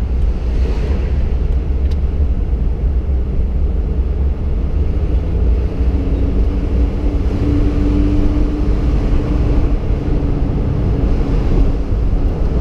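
Car driving, heard from inside the cabin: a steady low rumble of road and engine noise, with a steady hum coming in about halfway through.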